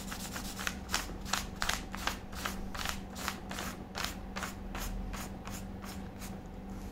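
Yellow crayon stroking back and forth across paper, about three to four scratchy strokes a second, fading out near the end, over a steady low hum.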